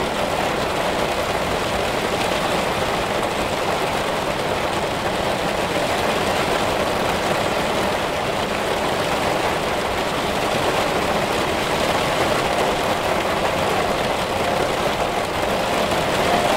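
Heavy rain falling steadily, a dense, even wash of drops with no break or change.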